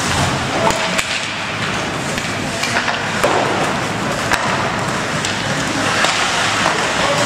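Ice hockey play on the rink: skate blades scraping the ice under a steady hiss, with scattered sharp clacks of sticks and puck.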